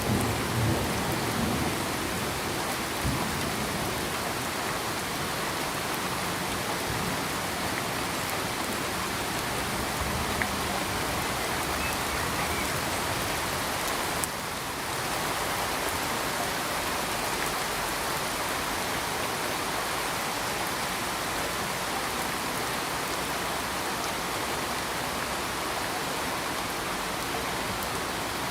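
Steady rain falling, an even continuous hiss, dipping briefly about halfway through.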